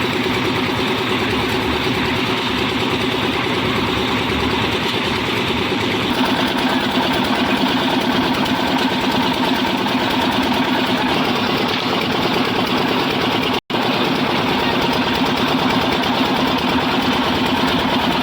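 Engine of a concrete mixer machine running steadily, with an even engine hum that grows a little stronger about a third of the way through. The sound cuts out for an instant about three-quarters of the way through.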